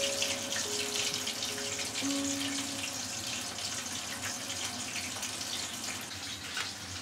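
Soft background music with a few held notes, over a steady crackling hiss.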